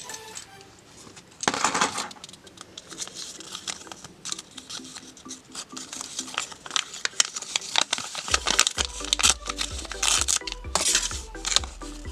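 Hands handling a Kinder Surprise egg and its toy: crinkling and many small, irregular plastic clicks and taps, over upbeat electronic background music. A burst of crinkling comes about a second and a half in, and the clicks go on through the rest.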